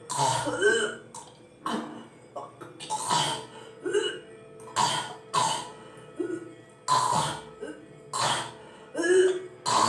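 A woman repeatedly hawking and gagging, making harsh throaty retching noises and spitting, in short bursts about once a second.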